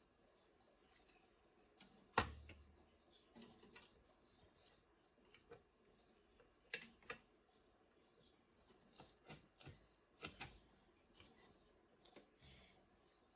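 Faint, scattered clicks and taps against near silence, with one louder knock about two seconds in and a few more clicks later on.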